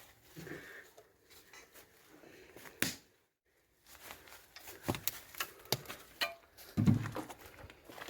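Footsteps and handling noises on a debris-strewn floor: scattered clicks, knocks and crunches, busiest in the second half with a dull thump near the end. The sound drops out completely for about half a second just after three seconds in.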